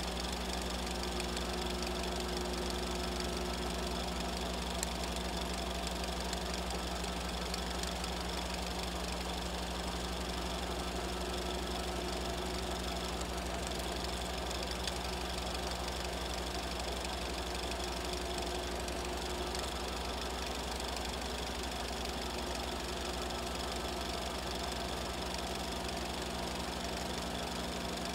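A small motor running steadily with a low, unchanging hum and whirr, with a faint click twice.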